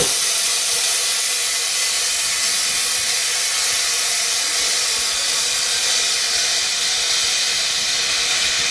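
Compressed air hissing steadily out of an LCD bubble-removal machine as it vents its pressure at the end of a cycle; the hiss starts suddenly at full strength.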